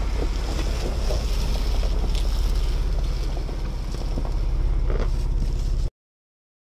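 Ford Bronco engine running at a low, steady crawl as the truck passes over the ground-level camera, with wind buffeting the microphone. The sound cuts off suddenly near the end.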